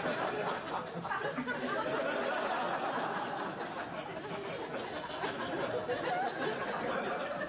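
Studio audience laughing and chattering, a steady crowd din with no single voice standing out.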